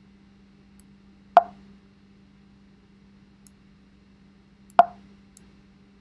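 Two sharp knocks on the sheet-metal cover of an electronic control box, about three and a half seconds apart, each with a brief metallic ring, over a faint steady hum.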